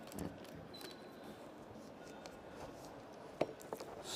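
Thin wooden kumiko strips being shifted and squared up by hand on a wooden jig, giving faint light wooden clicks and rustling, with one sharper click about three and a half seconds in.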